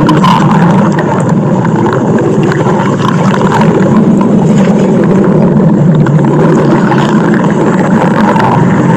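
Stomach growling sound effect: a loud, steady, unbroken rumble.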